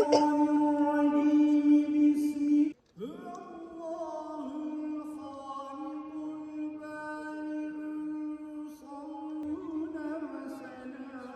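Mevlevi sema ceremony music: a long steady held note that breaks off suddenly, then a slow, wavering chant-like melody with sliding pitch.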